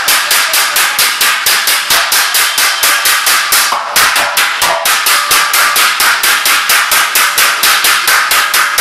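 Several hand hammers beating in turn on a large riveted sheet-metal vessel: a fast, even clatter of metal blows, about five a second, with a ringing tone under them.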